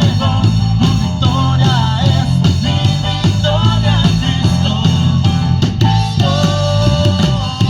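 A band playing a song with drums, bass and guitar, a melodic line bending up and down over a steady beat.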